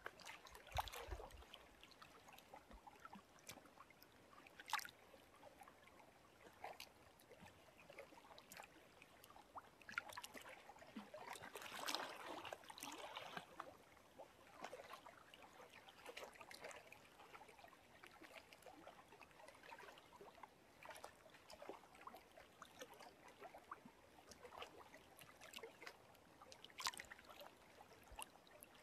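Faint lapping of small lake waves, with irregular soft splashes and trickles, a little louder about twelve seconds in.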